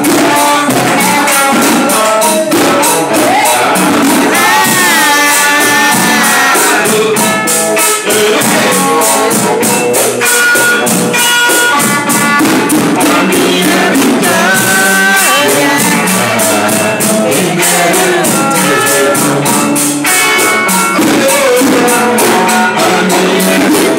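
Live worship music played loud: an electric guitar through an amplifier and a man singing, over a steady, even percussion beat.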